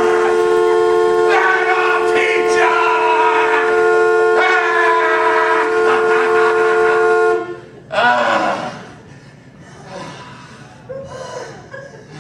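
Two-note car horn held down in one long, steady blast of about seven seconds, then released. It is a protest honk at a slow driver ahead.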